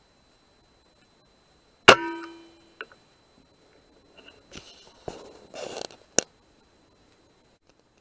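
A PCP air rifle firing once: a sharp crack with a short metallic ring about two seconds in. Small clicks and rustling handling noises follow over the next few seconds.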